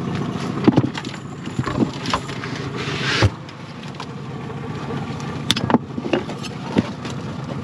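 Small boat's outboard motor idling, with scattered knocks and clicks of handling on deck; the motor noise drops noticeably about three seconds in.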